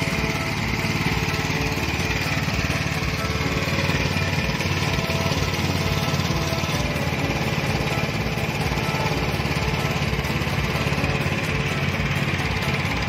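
Engine of a Matsumoto MLM158 RO riding lawn mower running steadily with an even, low pulsing note.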